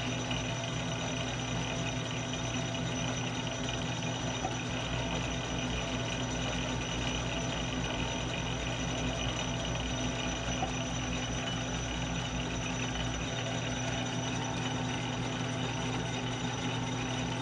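Metal lathe running steadily at low threading speed, its motor and gear train giving a constant hum with a few steady low tones.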